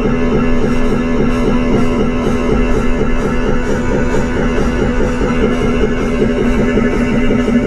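Loud rock music with electric guitar and drums playing over the car's sound system.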